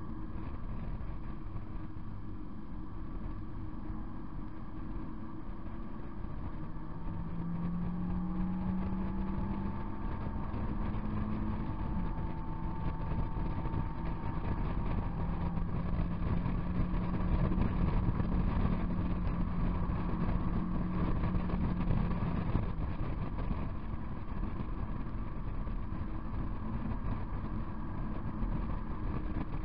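On-board sound of an NB Mazda MX-5's four-cylinder engine being driven hard on track, heard from the open cockpit with wind and road noise. The engine note climbs, steps down at a gear change about twelve seconds in, and falls again near the end as the car lifts for a corner.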